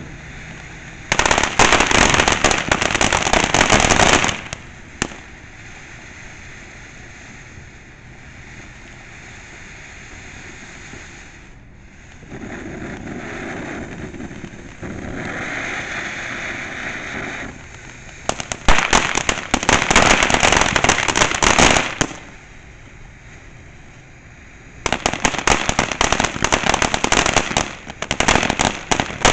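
Ground-fountain fireworks spraying sparks: a steady hiss broken by three loud spells of rapid crackling, the first about a second in and the last near the end.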